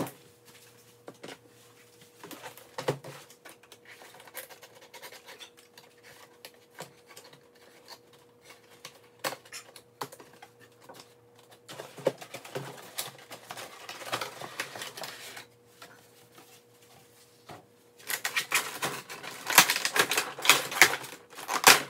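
Cardboard box and plastic packaging of a boxed vinyl figure being opened by hand: scattered clicks, scrapes and rustles, denser about halfway through, then loud, dense crinkling for the last few seconds.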